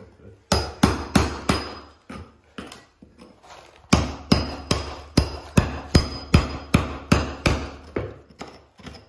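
Hammer striking a chisel, chipping away the cement floor fill around a radiant-heat PEX tube to free it for repair. A few sharp strikes in the first second and a half, then a steady run of about two to three strikes a second from about four seconds in.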